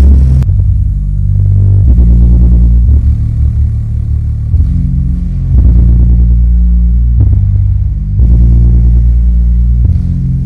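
A DIY subwoofer driven by a TPA3116D2 100 W mono amplifier board plays bass-heavy music loudly. Mostly deep, sustained bass notes change pitch every second or so, with little treble.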